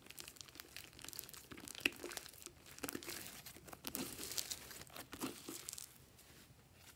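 Thick green slime squeezed and stretched by hand, giving a steady run of sticky crackles and small wet pops. It stops abruptly shortly before the end.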